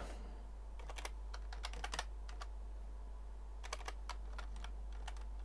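Computer keyboard being typed on in short bursts of clicking keystrokes, a few keys at a time with a pause in the middle, over a steady low hum.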